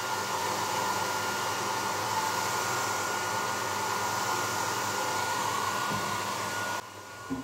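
Handheld hair dryer running steadily at medium speed, its air blowing through a kitchen colander held over the nozzle as a makeshift diffuser, with a steady whine over the rush of air. It cuts off suddenly near the end.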